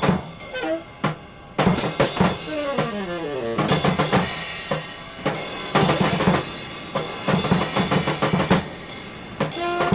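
Background music led by a drum kit: rapid kick and snare hits in busy fills, with a falling pitched sweep about three seconds in.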